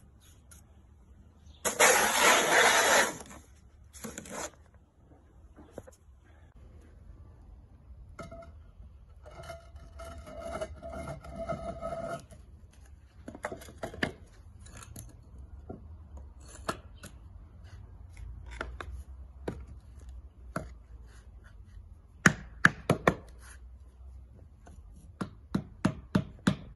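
Bricklaying work on concrete kerbs: a loud rough scrape of mortar and sand about two seconds in, more scraping and small knocks, then a run of sharp taps near the end as a concrete kerb is tapped down into its mortar bed.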